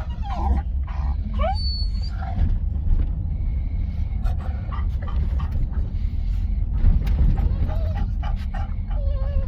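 Shar Pei dog whining in short, high, up-and-down whimpers, most clearly in the first couple of seconds and again near the end, over a steady low rumble.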